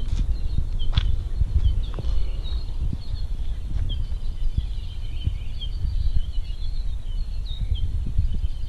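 Birds chirping throughout in short, high notes that slide quickly down, several a second, over a steady low rumble with a few sharp knocks.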